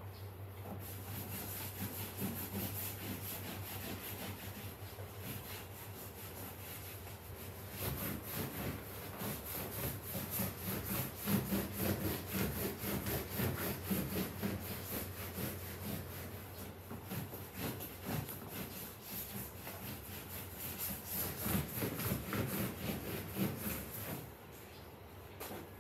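A sponge in a rubber-gloved hand scrubbing sofa upholstery with cream cleanser: fast, rhythmic back-and-forth rubbing strokes that get busier partway through and stop shortly before the end.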